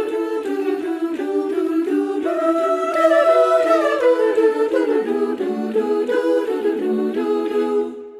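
Women's choir of sopranos and altos singing a cappella in close harmony, moving through several chords before the final chord dies away near the end.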